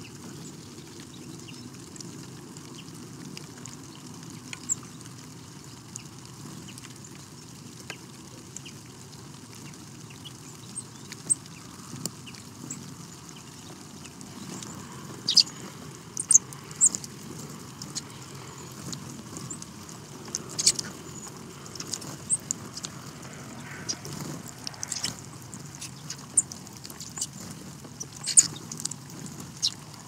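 Finches such as hawfinches and bramblings feeding on a tray of sunflower seeds: sharp, scattered pecks, seed-cracking clicks and short chip calls. They get busier and louder about halfway through, over a steady low outdoor rumble.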